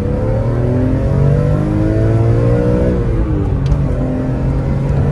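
BMW E46 M3's straight-six accelerating hard. The engine pitch climbs, drops once about three seconds in at an upshift, then climbs again.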